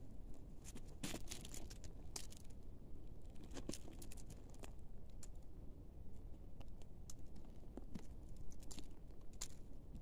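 Faint, irregular crunching and crackling of gravel and dry leaves being disturbed, in scattered small clicks, over a low steady rumble.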